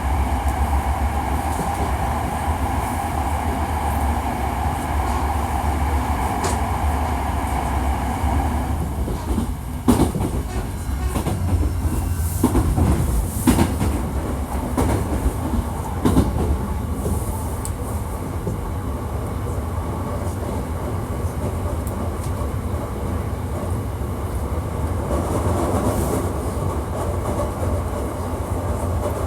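Hankyu 1300 series electric train running, heard from inside the car: steady whining tones from the drive, with a run of rail-joint clicks and knocks in the middle, over a constant low rumble. This unit is known for an abnormal running noise.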